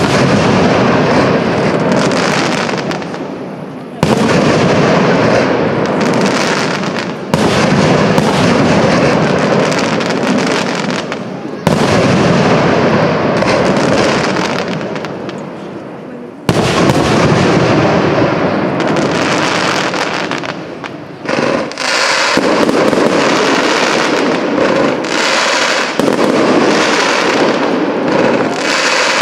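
Aerial firework shells bursting: a loud bang roughly every four seconds, each with a long fading tail. Near the end comes a faster run of pops and crackles.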